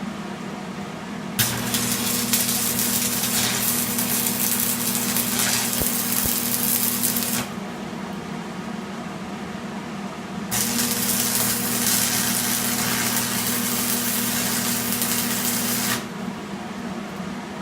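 Electric arc welder running two welds, each about six seconds long: a steady crackling hiss over a low electrical hum, starting and cutting off sharply.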